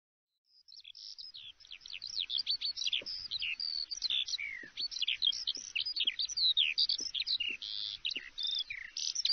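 Small songbirds chirping rapidly in a dense chorus of short rising and falling notes, fading in over the first second or two.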